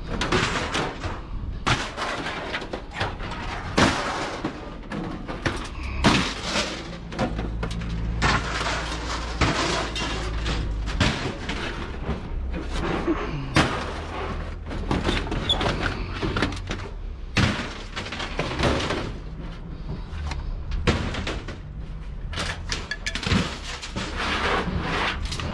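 Repeated clanks, bangs and thuds of scrap being handled, with a steady low hum under part of it near the middle.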